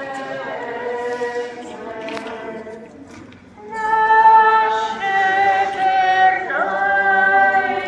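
A choir singing a slow sacred hymn in held notes: a softer phrase, a short lull, then a louder phrase from about four seconds in.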